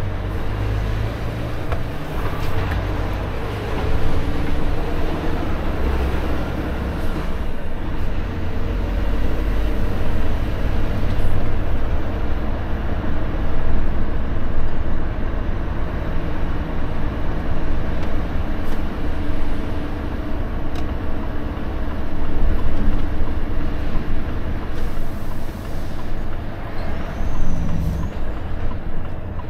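Volvo FH 460 truck's diesel engine running at low road speed, heard from inside the cab as a deep rumble that rises and falls with the throttle. A short hiss of air brakes comes near the end.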